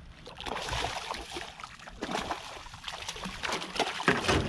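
Water splashing and trickling in irregular bursts, with scattered light knocks and clicks; a couple of louder splashes come about two seconds in and near the end.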